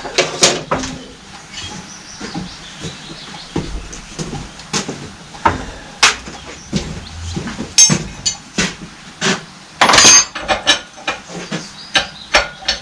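Steel spanners clinking and knocking in a quick, irregular run as they are picked out and tried against fittings, with a louder clatter about ten seconds in.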